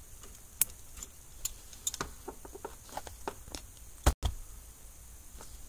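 Scattered small clicks and ticks of needle-nose pliers squeezing a plastic wire tap connector onto a wire, with light handling of the wiring and a brief cut-out about four seconds in.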